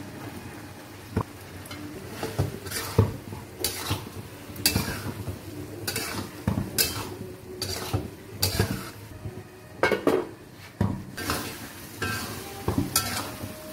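Flat spatula stirring fried tofu cubes in sambal around a metal wok, scraping and knocking against the pan about once a second, over a light sizzle of frying.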